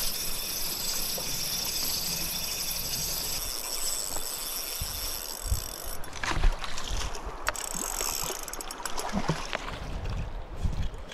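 Shallow river water rushing over stones, with splashing and knocks from about six seconds in as a landing net is dipped into the water.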